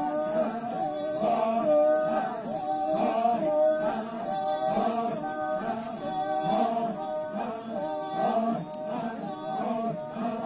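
Sumi Naga folk-dance chant: a group of voices singing unaccompanied in unison, short phrases repeated in a steady rhythm.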